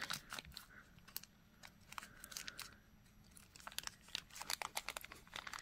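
Small plastic zip bag crinkling and clicking faintly as a strand of shell pearl beads is worked back into it, the crackles sparse at first and busier near the end.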